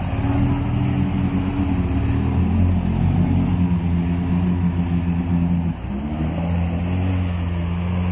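Off-road racing vehicle engine running at steady high revs, dipping briefly about six seconds in and then holding steady again.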